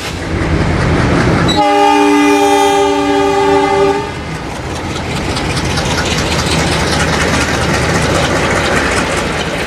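A WAP-7 electric locomotive's horn sounds one steady multi-note chord for about two and a half seconds, starting a second and a half in. Under it and after it runs the rumble and rattle of an Indian Railways passenger train on the move.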